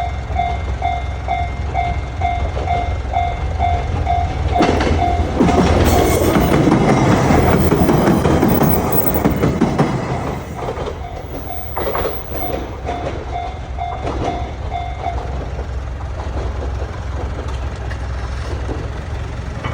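Railway level-crossing warning bell ringing its electronic 'kan-kan' about twice a second while a train passes over the crossing. The train's wheels rumble and clack loudest from about five to ten seconds in, and the bell stops about fifteen seconds in.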